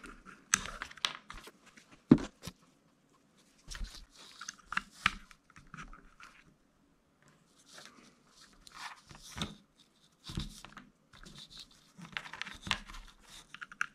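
Handling noise from small LiPo battery packs and their plastic plug leads being unplugged and picked up: irregular clicks and rustling, with one sharp click about two seconds in.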